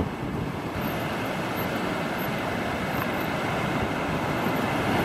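Steady wind noise on the microphone mixed with the wash of small waves breaking along the beach.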